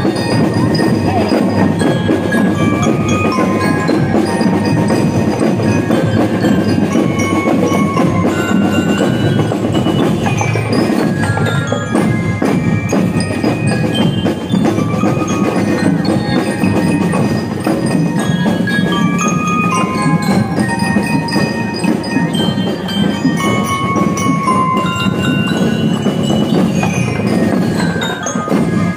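Drum and lyre corps playing a marching tune: bell lyres carry the melody over steady snare and bass drum beats.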